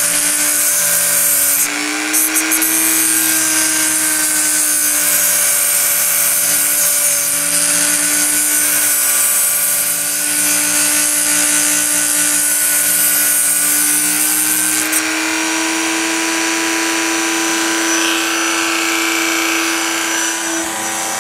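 Handheld rotary tool with a small abrasive cut-off disc running at speed, grinding a groove into a thin porcelain flower stem for a wire armature. A steady motor whine with a gritty high hiss from the disc cutting the porcelain.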